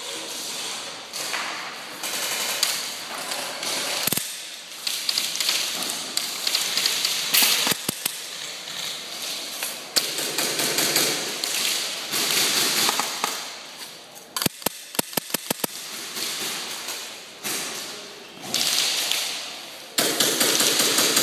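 Airsoft guns firing: scattered single shots and, a little past the middle, a quick burst of about nine shots. A rushing noise comes and goes under the shots.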